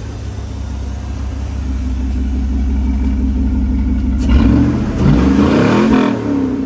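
Chevrolet Silverado pickup engine, fitted with a freshly installed Volant cold air intake, idling steadily and then revved about four seconds in, its pitch rising and falling back over a couple of seconds with a rush of air over the rev.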